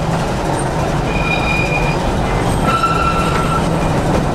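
A Victorian electric mountain-railway tramcar running, with a steady rumble and a low motor hum, and two short high wheel squeals, one about a second in and another near three seconds.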